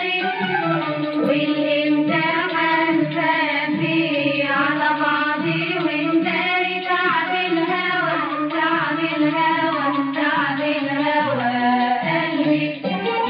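Music from an old recording of an Egyptian song with a narrow, muffled sound: an instrumental passage between sung lines, with melodic lines moving up and down in pitch.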